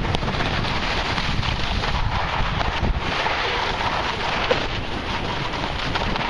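Wind buffeting the microphone: a steady rushing noise with a low rumble.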